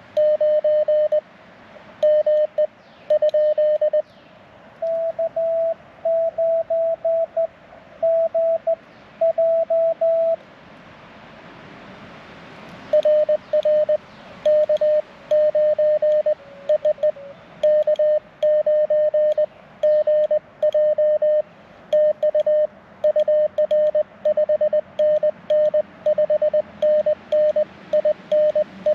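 Morse code (CW) from an amateur radio transceiver: a single steady-pitched tone keyed on and off in dots and dashes, over faint hiss between the characters. A run of characters lasts about ten seconds, then after a pause of two or three seconds a longer, faster run continues.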